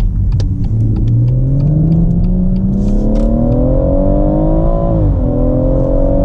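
BMW M140i's turbocharged 3.0-litre straight-six with an M Performance exhaust, heard from inside the cabin, pulling hard out of a turn. Its note rises steadily with the revs, drops at an upshift about five seconds in, then climbs again. Light ticking in the first second.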